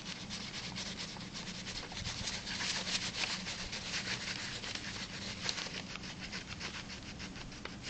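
Wax crayon scratching on paper in quick, repeated back-and-forth strokes as a picture is drawn.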